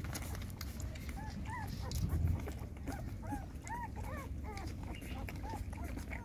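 Young puppies squeaking and whimpering while they nurse: many short, high little calls scattered through, over a low background rumble.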